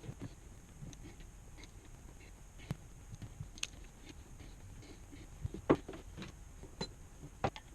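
Parts and tools being handled during engine repair work: scattered light clicks and knocks, with one sharper knock a little before six seconds in.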